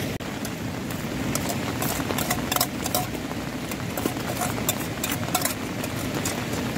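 Metal spoon knocking and scraping against a steel bowl as rice is tipped from it into an aluminium cooking pot, a string of sharp clicks over a steady rushing background noise.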